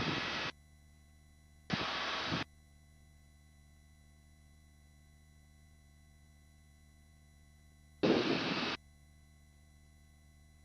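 Helicopter intercom mostly gated to near silence with a faint steady hum, broken three times by short bursts of rushing cabin noise, about half a second each, that switch on and off abruptly as the voice-activated headset mic opens and closes.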